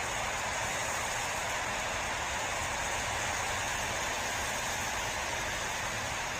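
Strong wind blowing outdoors, a steady rushing hiss with no clear gusts.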